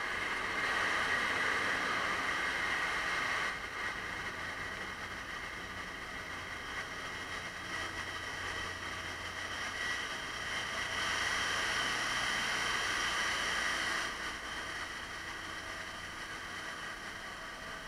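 Steady din of a container ship's engine room machinery running, an even noise with a faint hum. It is a little louder for the first few seconds and again about eleven to fourteen seconds in.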